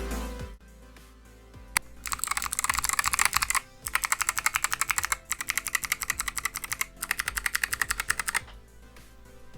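Fast typing on a mechanical keyboard fitted with Kailh Box White clicky switches, in an unfoamed Drop OLKB Preonic V3 case: loud, sharp clicks in four quick bursts with short pauses between them. The clicks begin about two seconds in and stop about a second before the end, after background music fades out at the very start.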